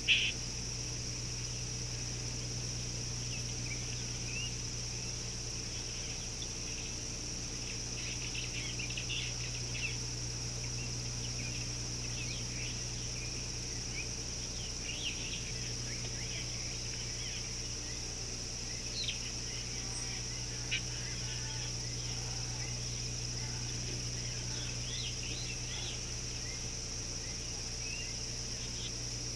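Outdoor ambience: a steady high-pitched insect drone with scattered short bird chirps over it and a low steady hum beneath. A sharp click sounds right at the start.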